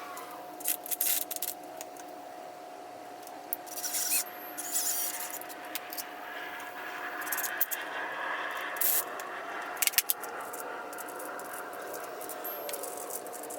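Work noise of tools and metal parts being handled: scattered clicks and knocks, with a stretch of scraping about halfway through, over a faint steady hum.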